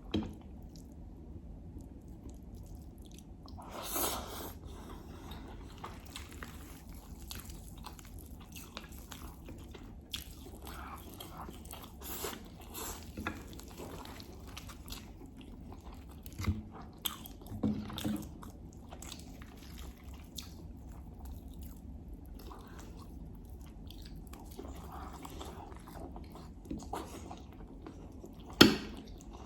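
Close-miked mouth sounds of someone chewing and biting food (herb stew, rice and lamb), with wet clicks and smacks at an irregular pace. A sharp, loud knock comes near the end.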